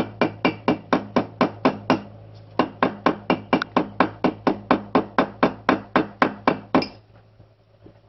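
A hand tool striking during an inner-tube patch repair, in rapid, even taps about four a second. The taps pause briefly about two seconds in, then run on and stop about a second before the end.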